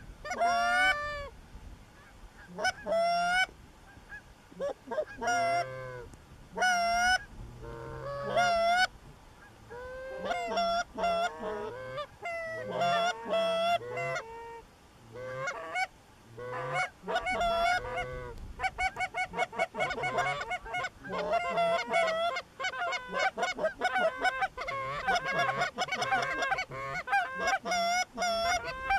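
Canada goose honking: loud, pitched honks and clucks in irregular runs, becoming a dense, rapid stream of calls in the second half.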